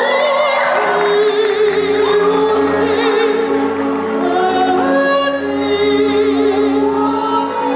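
A woman singing live into a handheld microphone over steady instrumental accompaniment through a PA, holding long notes with vibrato as the melody steps upward.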